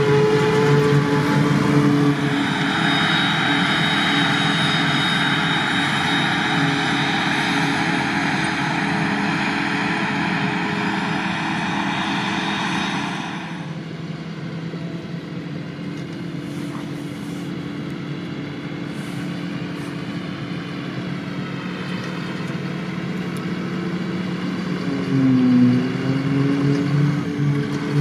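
Claas Jaguar forage harvester running at work: its engine, with a loud hiss of chopped grass blown through the spout into a trailer, and tractor engines alongside. This cuts off suddenly about halfway. Then a John Deere tractor pulling a tandem dump trailer drives by, its engine note dipping briefly and rising again near the end.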